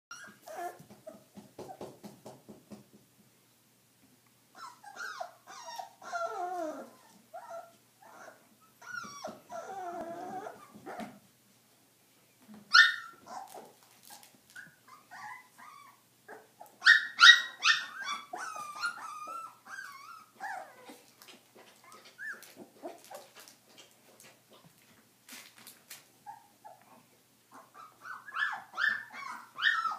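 Three-week-old Stabyhoun puppies whimpering, yipping and growling as they play, in short scattered calls with gaps between. The loudest is a quick run of sharp yips about halfway through, with another run near the end.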